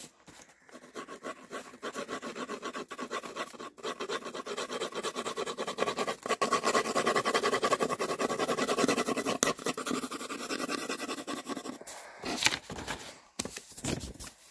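Pencil scratching rapidly across paper in quick back-and-forth strokes, as in shading, loudest in the middle stretch. It stops about twelve seconds in, followed by a few knocks.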